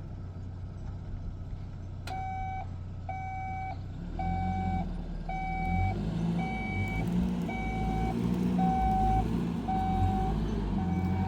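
A vehicle's reversing alarm beeping about once a second, nine beeps starting about two seconds in, over the engine running, which grows louder about four seconds in.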